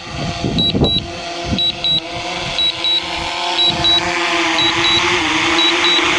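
Drone controller beeping its low-battery warning, a quick double beep about once a second, over the steady, slightly wavering hum of the drone's propellers.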